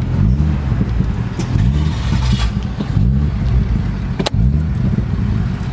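Car engine revving, its pitch rising and dropping back several times, about once a second, with one sharp click about four seconds in.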